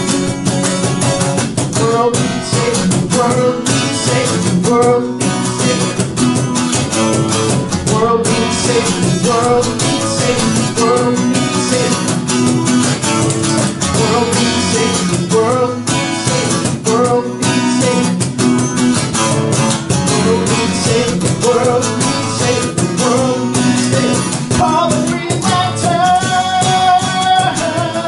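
Acoustic guitar strummed with a cajon played alongside, keeping a steady beat: a live acoustic song performance.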